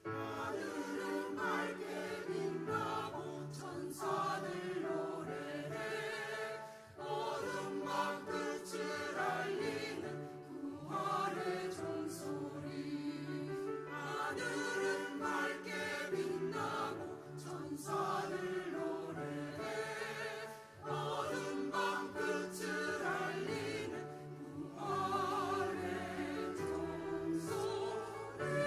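Church choir singing an anthem in several parts, voices held with vibrato, with short breaks between phrases about a quarter of the way in and again about two-thirds through.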